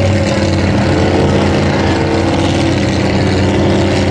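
Racing lobster boat's inboard engine running hard at speed, a loud steady drone whose pitch drifts slightly lower, over the rush of the hull through the water.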